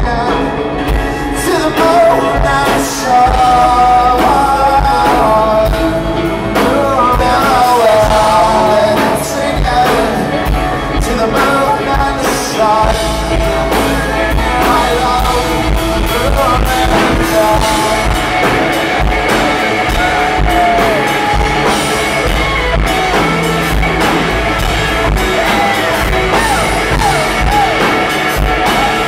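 Live rock band playing: electric guitar, bass guitar and drum kit, with a man singing lead, loud and continuous.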